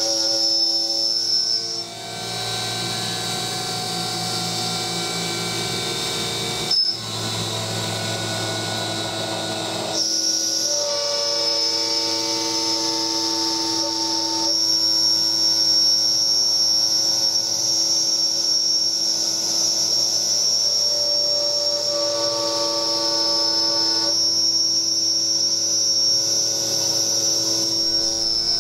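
CNC mill's BLDC spindle motor running an end mill through 6061 aluminium under flood coolant, a steady high whine over the cutting. For several seconds after about 2 s the whine gives way to a rougher, noisier cut, broken briefly about 7 s in, then the whine returns.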